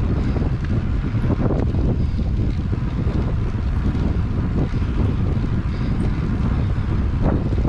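Wind buffeting the microphone of a handlebar-mounted camera on a moving bicycle: a steady, loud, low rumble with no let-up.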